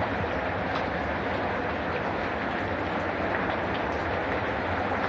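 Rain falling steadily into a garden fish pond and onto the stones around it: an even hiss of countless drops hitting water.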